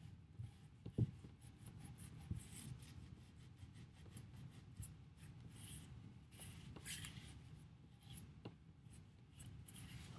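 Faint rubbing and scratching of a cloth wiping wet red paint off a textured ceramic figure, with small clicks and a light knock about a second in as the piece is handled.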